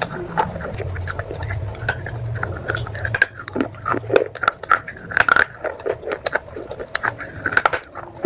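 Close-miked chewing of soaked clay pot pieces: wet crunching and crackling in the mouth, coming thicker after about three seconds.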